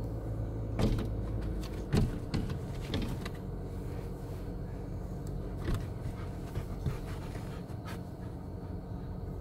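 Australian cattle dog panting and shifting about on a car's back seat, with a few short knocks, over the steady low hum of the car's engine running.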